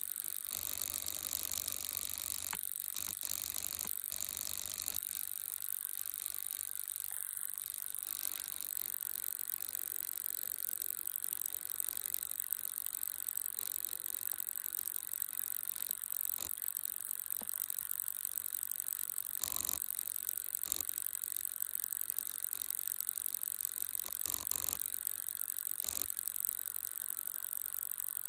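Steady high-pitched hiss with a fast, even rattling texture and occasional faint clicks, unbroken throughout.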